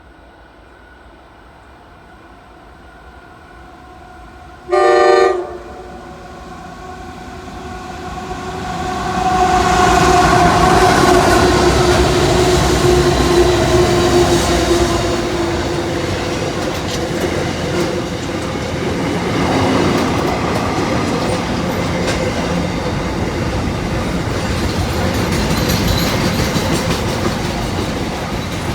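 Diesel-electric freight locomotive sounding one short blast on its multi-tone horn about five seconds in, then the train passing close by: locomotive engines running under load, their tone dropping slightly as they go past, followed by the steady rumble and clatter of wagon wheels on the rails.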